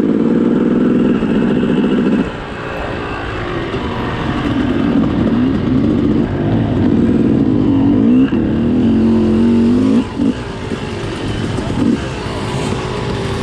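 Yamaha YZ250 two-stroke single-cylinder dirt bike engine being ridden, its revs rising and falling as the throttle is worked. It eases off about two seconds in and chops the throttle briefly near ten and twelve seconds.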